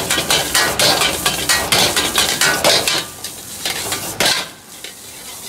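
Metal ladle striking and scraping a wok in a fast rhythm, about five strikes a second, as fried rice is tossed and stirred over a gas flame, with the rice sizzling. The strikes thin out about three seconds in, with one last loud knock a little after four seconds.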